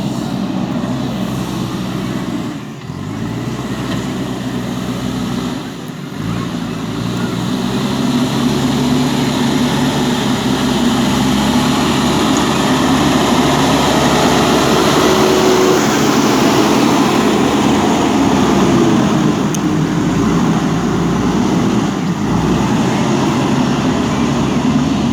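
Backhoe loader's diesel engine working under load, its pitch dipping and climbing back twice in the first few seconds, then running harder and louder.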